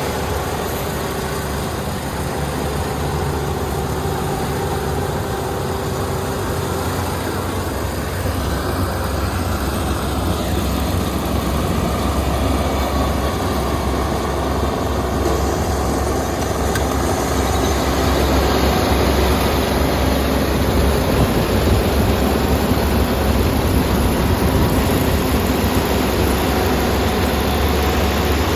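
Kubota combine harvester running steadily during harvesting: a constant engine hum with machinery noise, growing a little louder in the second half.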